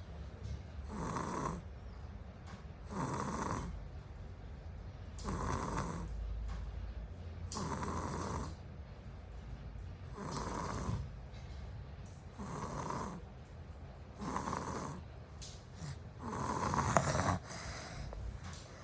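A small child snoring in steady, even breaths, about one snore every two seconds, eight in all.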